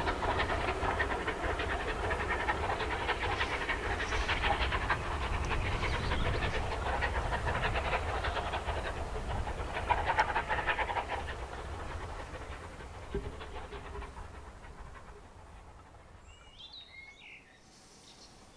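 Steam locomotive working a passenger train, a rapid run of exhaust beats with rail noise, fading away steadily as the train draws off into the distance.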